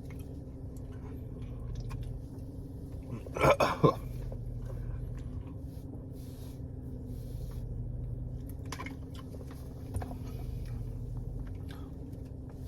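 A man chewing popcorn chicken with his mouth close to the microphone: scattered small wet smacks and crunches over a steady low hum, with one louder, rougher noise about three and a half seconds in.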